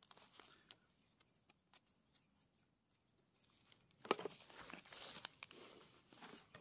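A faint steady insect trill, typical of a cricket, with a few small ticks, then from about four seconds in rustling footsteps through grass and brush.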